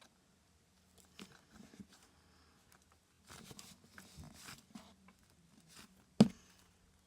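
Hands squishing and working butter slime, making soft scattered clicking and sticky crackling, with one sharp loud click or pop about six seconds in.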